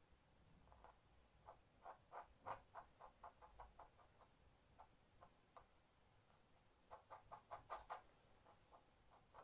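Faint quick ticks and scratches of a dip pen's nib dabbing ink onto paper, filling in a black area. The ticks come in two runs, one from about a second in for a few seconds, the other around seven to eight seconds in.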